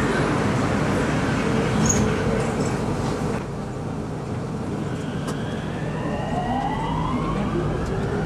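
Japanese-built electric metro train heard from inside the car: steady rumble and hiss of the running train. Over the last two seconds a whine from its traction motors rises in pitch as the train picks up speed.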